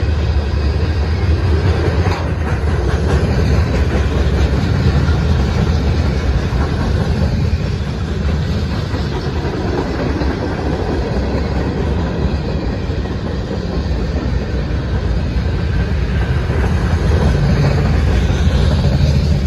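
Freight cars of a passing freight train rolling by close, steel wheels running on the rails: a steady, loud rolling noise from tank cars, boxcars and centerbeam lumber flatcars.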